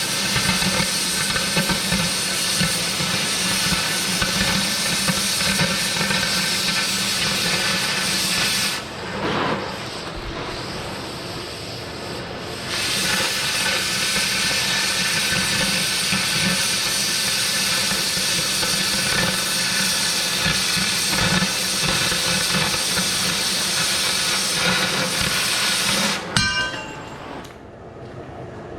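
Cutting torch hissing steadily as it cuts through the steel barrel, over a steady low hum. The hiss thins out for a few seconds about nine seconds in, comes back, and stops with a sharp click near the end.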